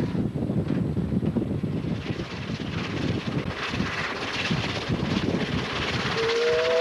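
NG15 narrow-gauge steam locomotive running at speed, a loud steady rattling din heard from the footplate. About six seconds in, its steam whistle starts, a chord of several tones rising slightly in pitch.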